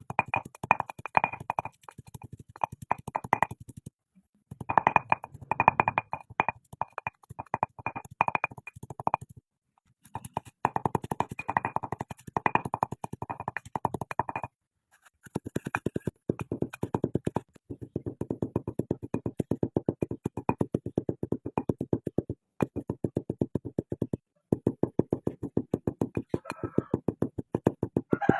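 Rapid, even clicks or taps, many a second, in runs broken by brief pauses; the later runs sound lower and duller than the first ones.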